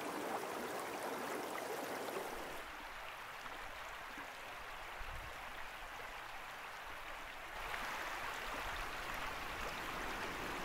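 Steady rush of running water from a mountain stream. Its tone and loudness shift abruptly about two and a half and seven and a half seconds in.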